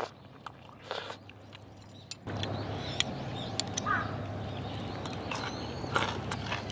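A few soft clicks of eating with chopsticks, then about two seconds in a wood fire of split logs starts up, crackling and hissing steadily with sharp pops under a pot of ramen.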